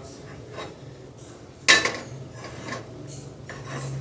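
A metal utensil working a frying pan: one sharp ringing clank about two seconds in, with lighter scraping and rubbing against the pan around it, over a faint steady hum.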